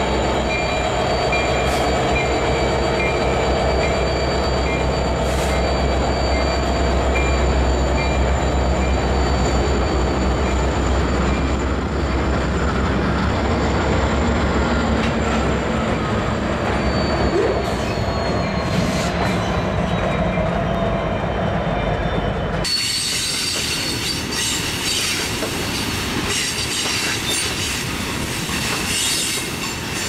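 Diesel freight locomotives rolling slowly past: a deep engine rumble under a steady high-pitched squeal of wheel flanges. About two-thirds of the way through, an abrupt cut brings in loaded hopper cars rolling by with rattling, clattering wheel noise.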